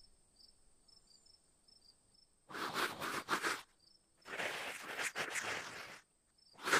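A raccoon hissing in two loud breathy bursts, about a second and then nearly two seconds long, with a third starting at the very end. Behind it, crickets chirp faintly and evenly throughout.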